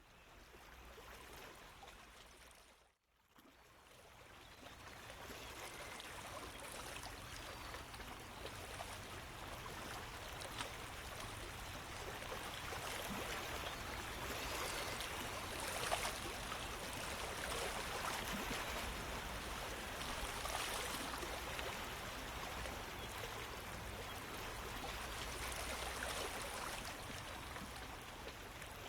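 Running-water sound effect, steady like a stream. It fades in, cuts out briefly about three seconds in, then comes back and grows a little louder.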